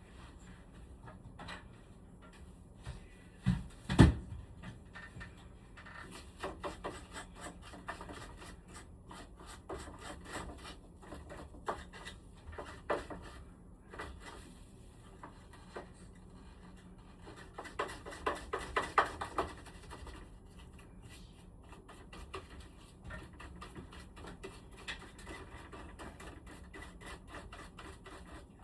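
Hands working on the parts of a room air conditioner during cleaning: scattered bursts of rubbing and scraping, with one sharp knock about four seconds in.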